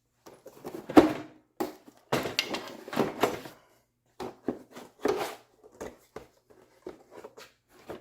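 Irregular knocks, clatter and scraping as the housing of an electric pressure washer is handled and pulled apart, with the loudest knock about a second in and a busy run of scraping and rattling between two and three and a half seconds.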